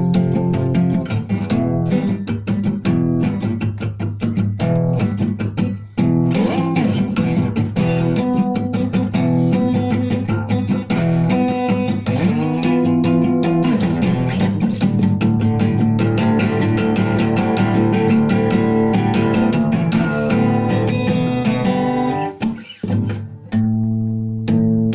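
Guitar music with bass: plucked and bent guitar notes over a steady bass line, with a brief break near the end.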